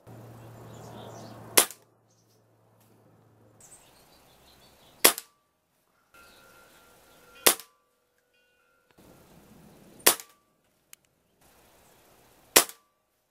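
Five shots from a Benjamin Marauder .177 precharged pneumatic air rifle, each a single sharp crack, about two and a half seconds apart.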